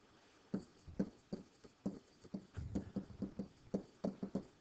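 Pen stylus tapping and clicking against a writing surface as a short phrase is handwritten: an irregular run of light, quick taps, several a second.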